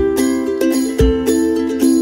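Instrumental background music: a repeating melody over a low beat that falls about once a second.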